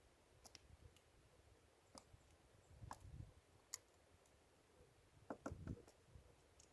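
Near silence with a few faint, scattered clicks and taps, clustered a little past five seconds in.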